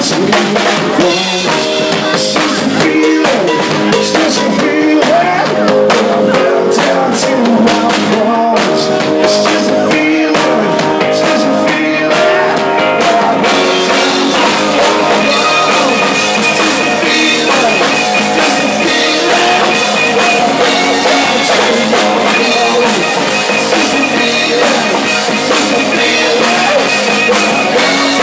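Live rock band playing loud: electric guitars, bass guitar and drum kit, with a man singing. The sound gets brighter at the top about halfway through.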